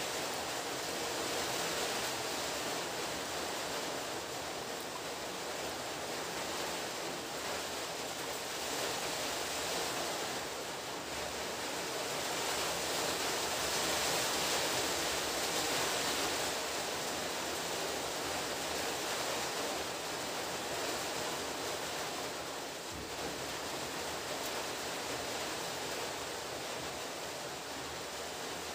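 Steady rushing noise, a little louder around the middle, with no distinct knocks or clicks standing out.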